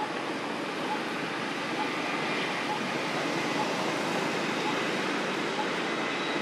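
Steady, even hiss of outdoor background noise, with a faint short high note repeating about once a second.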